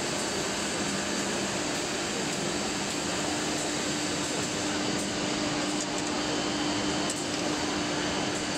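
Woodworking CNC router machining a wood panel: the spindle and its dust extraction run with a steady whirring noise. Its hum steps up in pitch about two seconds in.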